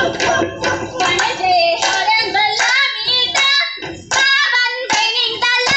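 A group of women singing a Goan fugdi folk song, with rhythmic hand claps cutting through the singing.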